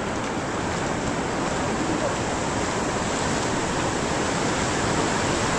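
White-water river rapids rushing in a steady roar of water, growing slightly louder toward the end.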